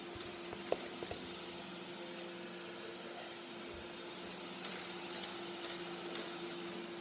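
A steady low background hum, with a few faint clicks in the first second.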